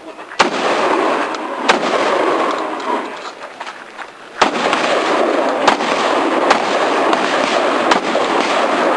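Shotgun being fired in a practical shooting stage: about six sharp shots, two early and a quicker string of four after a pause of more than two seconds, over a steady rushing background noise.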